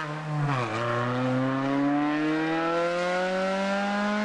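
Race car engine accelerating out of a hairpin. It lifts off briefly about half a second in, then its note climbs steadily as the car pulls away up the hill.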